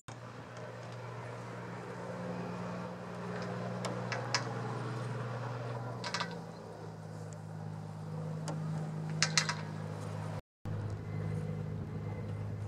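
Outdoor ambience carried by a steady low engine hum whose pitch shifts a little now and then, with a few brief high-pitched sounds on top. The sound drops out completely for a moment near the end.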